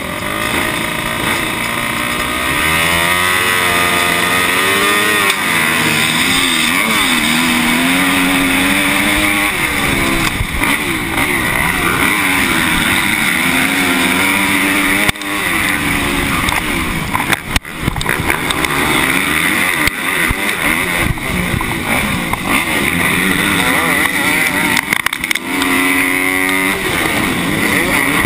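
A 250-class motocross bike's engine racing hard, its pitch repeatedly climbing and then dropping at gear changes, with wind noise rushing on the body-mounted microphone. The throttle cuts off sharply twice, briefly, about halfway through.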